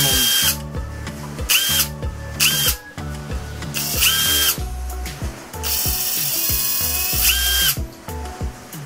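Brushless cordless drill spinning freely with no bit load, its motor whining at high speed and cutting out about half a second in. It is then triggered four more times in short bursts, the whine rising as it spins up and falling as it winds down, the last burst about two seconds long. Background music with a steady beat runs underneath.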